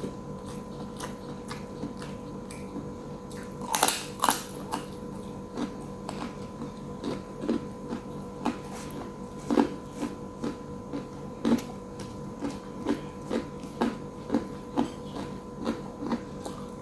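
A person eating close to the microphone: a loud crunchy bite about four seconds in, then steady chewing at about two chews a second. A faint steady electrical hum runs underneath.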